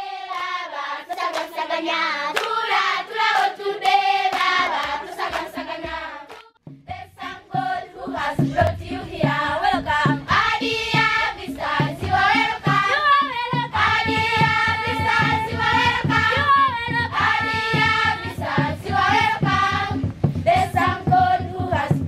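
A group of voices singing a song together, women's and children's voices among them. About seven seconds in, a steady rhythmic beat joins under the singing.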